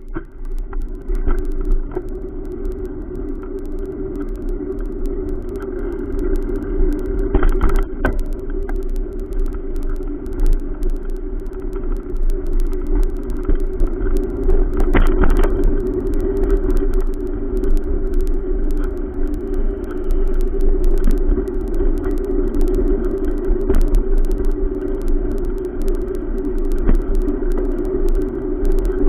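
Riding noise from a bicycle moving along a busy road: a steady low rumble with wind buffeting the microphone, as cars pass alongside. It swells up from quiet just as the bike gets moving, with brief louder swells about seven and fifteen seconds in.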